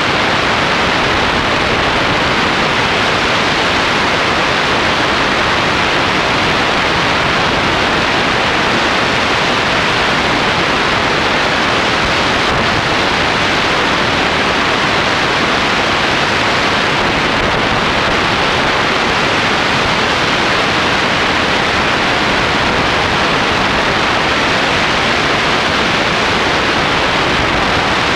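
Steady rush of wind across the microphone of a camera mounted on a tandem hang glider in flight.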